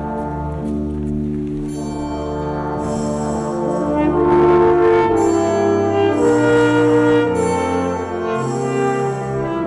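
Symphony orchestra with its brass section (French horns, trombones, tuba) playing held chords. The chords swell louder about four seconds in, and bright high ringing notes recur above them.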